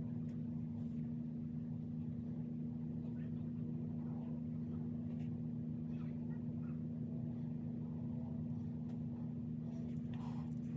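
A steady low hum, even in pitch, with a few faint ticks over it.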